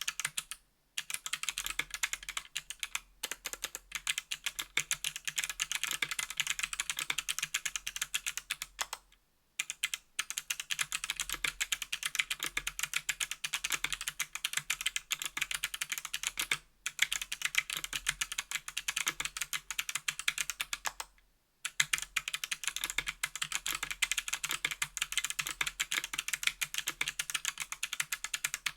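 Fast, continuous typing on a 60% aluminum mechanical keyboard with Kailh BOX Crystal Jade clicky switches, each keystroke a sharp click. The typing runs in long bursts with brief pauses about nine seconds in, halfway through, and around twenty-one seconds in.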